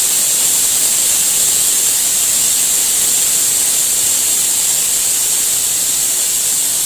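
Pressure cooker whistle: the weight lifts and steam jets out in a loud, steady hiss. This is the whistle that marks the cooker reaching pressure; the toor dal for sambar is cooked by counting two whistles.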